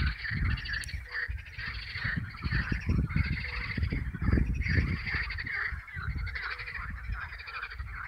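A dense spring chorus of frogs: many overlapping calls in rapid pulsed trills, with no pause. A low rumble comes and goes underneath.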